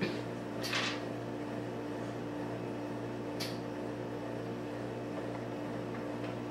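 A small electric motor hums steadily, with two short hisses, one about a second in and one midway.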